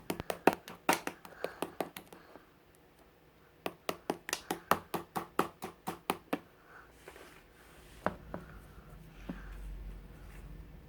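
Mixed slime being pressed and folded by hand, giving quick runs of sharp clicks and pops, about four a second, then a few scattered pops.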